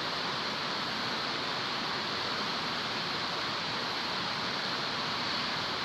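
Steady, even hiss with no distinct clicks or knocks in it.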